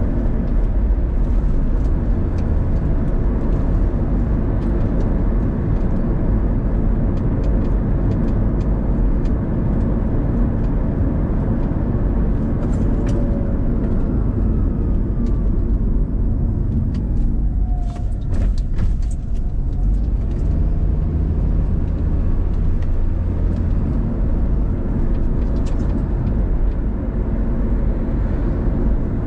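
Car driving along town streets: a steady low rumble of engine and tyre road noise, with a few short ticks a little past the middle.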